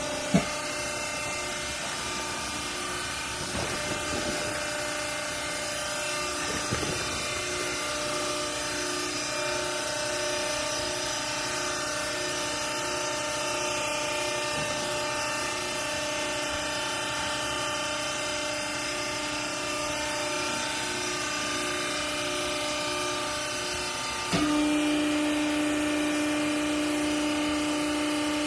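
Hydraulic clothing baler's motor and pump running with a steady whine, with a sharp click at the start and a few knocks in the first several seconds. About 24 seconds in it steps up louder with a strong steady hum.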